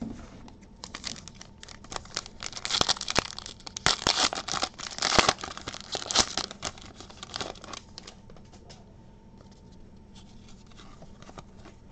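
A foil Panini Prestige basketball card pack being torn open and crinkled by hand, a dense crackling, loudest from about two to six and a half seconds in. After that come only faint clicks as the cards are handled.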